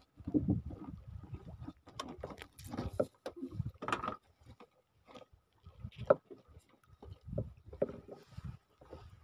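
Irregular knocks, taps and splashes of water slapping against a small wooden boat's hull, mixed with close handling noise as the hook and line are rebaited with squid.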